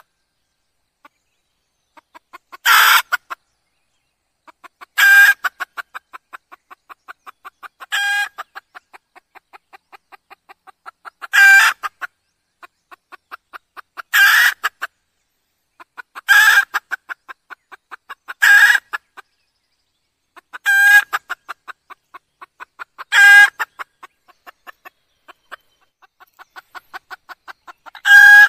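A red junglefowl hen calling. She gives a loud, short call every two to three seconds, with runs of soft, rapid clucks in between.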